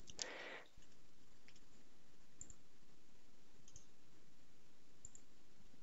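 Faint computer mouse clicks, a few sparse single clicks over a low steady hiss, with a brief soft rush of noise right at the start.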